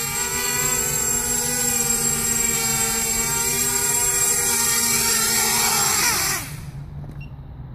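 250-size FPV racing quadcopter's motors and propellers whining at a steady pitch, then winding down in pitch and fading about six seconds in as the motors stop.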